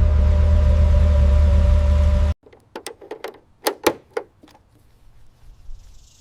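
A car engine running steadily with an even hum, cut off abruptly a little over two seconds in. Then a scatter of sharp light clicks and knocks, about a dozen over two seconds, before it goes quiet.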